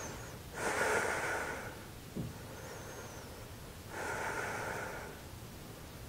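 A person breathing slowly and audibly while lying prone at rest: two long breaths, about three seconds apart.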